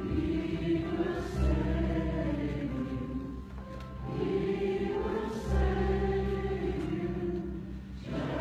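Church congregation singing a slow hymn with instrumental accompaniment during the altar-call invitation. It comes in two long, held phrases, the second starting about four seconds in.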